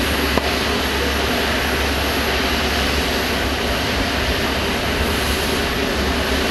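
Steady jet aircraft noise on an airport apron: a continuous roar with a thin high whine above it, and one small click about half a second in.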